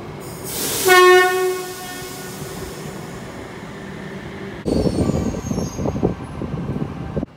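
NSW TrainLink D set electric train sounding its horn: a brief hiss of air, then one short single-note blast of about half a second, the loudest sound here. From about four and a half seconds in, a train's rumble with faint high squeals, cut off abruptly near the end.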